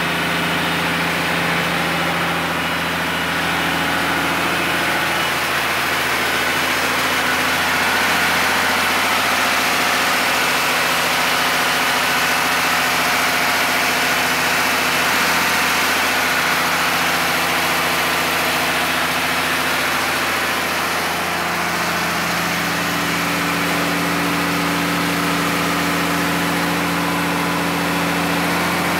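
Freshly overhauled Hino K13C inline-six diesel running on its test stand, a steady idle. Its speed wavers and it gets a little louder through the middle, then settles back to the even idle for the last several seconds.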